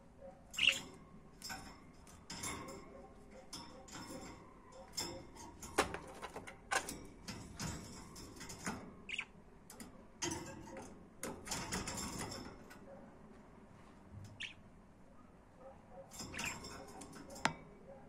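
Budgerigars chattering: an irregular run of short chirps, clicks and squeaks with a few brief high peeps, quieting for a few seconds about two-thirds through.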